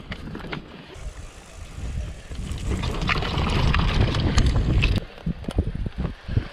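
Wind rushing over the camera microphone and tyres rolling as a mountain bike rides downhill over grass. The rumble grows for a few seconds and drops off sharply about five seconds in. A run of short rattles and knocks from the bike on rough ground follows.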